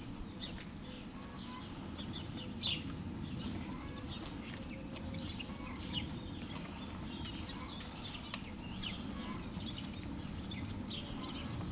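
Small birds chirping: many short, high chirps in irregular quick succession, over a steady low background rumble of outdoor noise.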